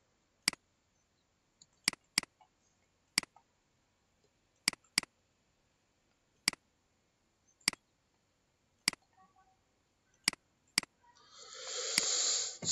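Computer mouse buttons clicking, about a dozen sharp single clicks and a few quick pairs spaced one to one and a half seconds apart, as context menus are opened and picked from. Near the end a soft noise swells up.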